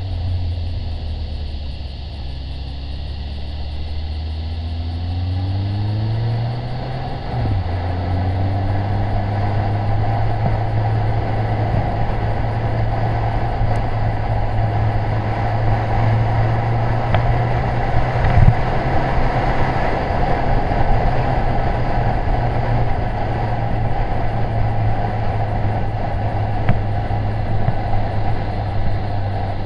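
Yamaha FJR1300 inline-four motorcycle engine under way, heard from a camera mounted on the bike, with wind and road noise. The engine note climbs about five seconds in, drops sharply at a gear change about seven seconds in, then holds steady as the noise of wind and road builds. There is a single brief thump about eighteen seconds in.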